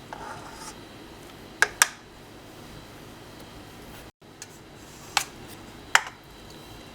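Small spatula clicking against the cake pan while spreading batter: a quick double click, then two single clicks later on, over faint room hiss.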